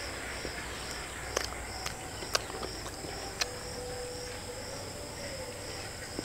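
An insect chirping steadily at about three high chirps a second, with a few sharp clicks over it.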